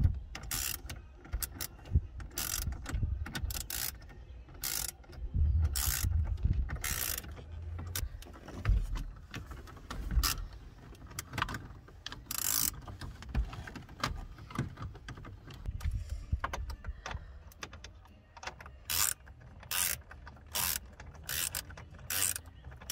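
Hand socket ratchet clicking in repeated strokes as the stereo's mounting bolts are tightened, settling into a regular run of strokes about twice a second near the end. Earlier there are scattered knocks and rubbing from the dash panels being handled.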